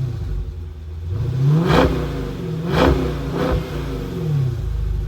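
Dodge Challenger Scat Pack's 6.4-litre V8 revved up and down several times. Each rev climbs to a peak and falls away, with the loudest peaks about two and three seconds in.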